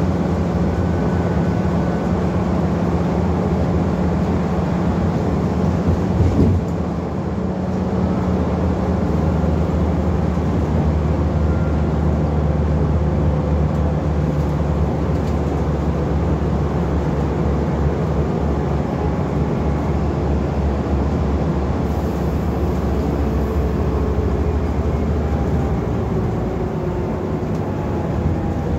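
A Scania N230UD double-decker bus heard from the upper deck while under way, its diesel engine running steadily with road noise. There is a single bump about six seconds in, and a slowly falling whine over the last few seconds.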